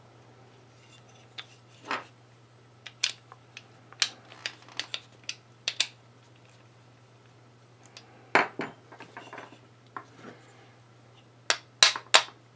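Small steel tools and parts clicking and clinking against an AR-15 lower receiver as the trigger retaining pin is worked into place. Irregular sharp clicks come in a cluster a few seconds in, again past the middle and near the end, over a faint steady hum.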